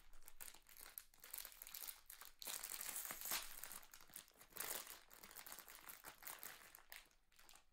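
Faint, irregular crinkling of a foil blind-box bag as hands open and crumple it, loudest about three seconds in.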